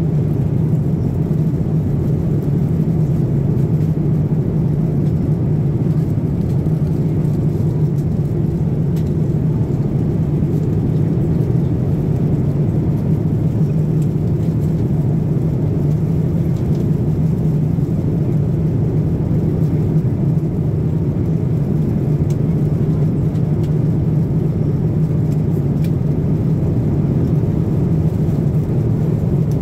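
Cabin noise of a Boeing 787 Dreamliner in cruise, heard from a window seat: a steady, even rumble of airflow and jet engines, heaviest in the low range, with no change throughout.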